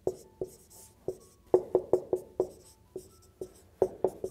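Dry-erase marker writing on a whiteboard: a quick, uneven run of taps and strokes, about three a second, some drawn out into short high squeaks.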